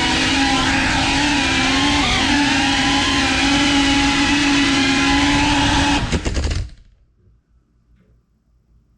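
FPV drone motors and propellers whining at a steady, slightly wavering pitch. About six seconds in comes a quick rattle of knocks, and the motors cut off abruptly: the drone crashing.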